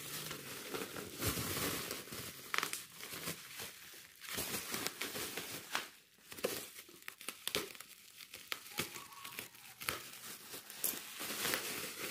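Bubble wrap and a plastic bag crinkling and rustling as hands pull them off a motorcycle helmet, with irregular sharp crackles throughout.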